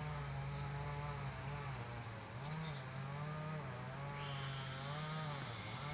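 Insect buzzing: a steady hum whose pitch wavers slowly up and down, with a faint high steady tone joining about four seconds in.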